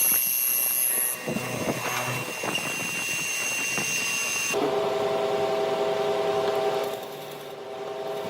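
Woodworking power tools running: first a steady whine over rough working noise, then, after an abrupt change about four and a half seconds in, a steadier motor hum that grows quieter toward the end.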